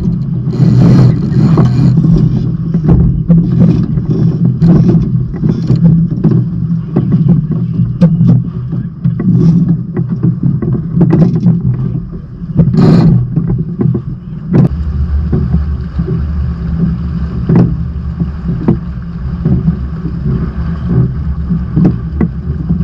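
Water rushing and slapping against the hull of a sailing trimaran under way, with many short sharp slaps over a steady low rush; a deeper steady rumble joins about two-thirds through.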